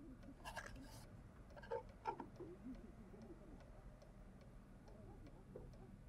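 A clock ticking faintly and steadily in a quiet room. Near the start there is a brief rustle of paper, and about two seconds in come two small knocks as cardboard boxes and tissue paper are handled.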